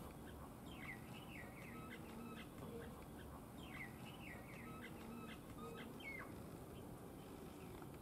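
Faint song of a small bird in the background: a few short phrases of quick, sweeping high chirps, a second or two apart, over a low background hiss.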